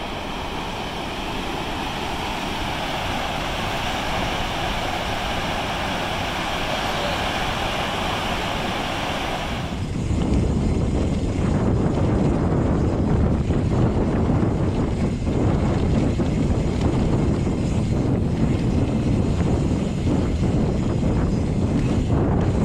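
Water pouring over a concrete dam's spillway, a steady rushing roar. About ten seconds in it cuts suddenly to a mountain bike riding a dirt singletrack, with heavy wind rumble on the camera microphone and the rattle of the bike over the trail.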